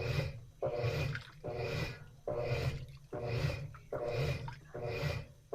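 Top-loading agitator washing machine in its wash cycle: the agitator works back and forth with a motor hum on each stroke and the water sloshing, a little over one stroke a second.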